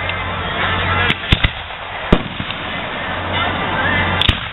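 Aerial fireworks going off as sharp bangs: one about a second in, a quick pair just after, another about two seconds in, and two more in quick succession near the end.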